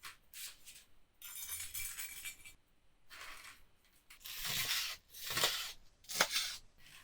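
A series of short kitchen handling noises, clinks and scrapes, one after another with brief gaps between them.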